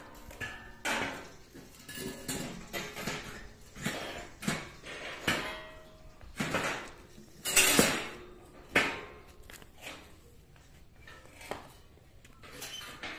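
Steel tent-frame pipes clanking and rattling as they are handled and fitted together: irregular metallic knocks with short ringing, the loudest a few clanks between about seven and nine seconds in.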